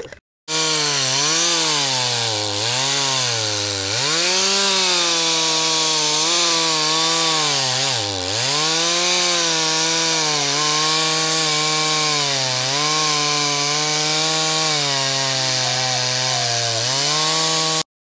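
Chainsaw running at high revs and cutting into a burr oak log, its engine pitch sagging under load several times and recovering. It starts about half a second in and cuts off abruptly near the end.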